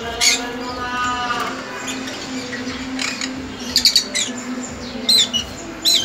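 Caged small parrots chirping: a handful of short, sharp high calls, the loudest clustered in the second half, over a steady low hum.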